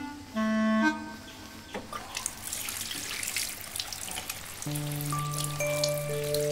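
Film background score: a woodwind note near the start, then a dense sprinkle of soft, trickling ticks, with a held low chord and a few higher held notes coming in about two-thirds of the way through.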